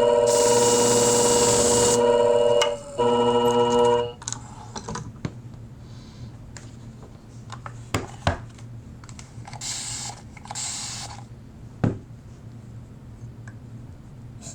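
Motor-driven flat-hone sharpening machine with an 800-grit stone running with a steady hum and grinding hiss as a shear blade is honed to raise a burr; it pauses briefly, runs again and stops about four seconds in. After that come a few sharp clicks of the shears being handled and two short hissing rubs.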